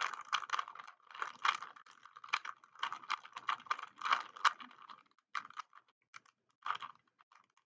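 3x3 Rubik's Cube being turned by hand: quick runs of plastic clicking and clacking as the layers rotate, thinning to a few separate clicks after about five seconds.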